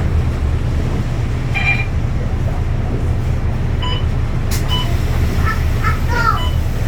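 A city bus running along the road, heard from inside the passenger cabin: a steady low engine and road rumble.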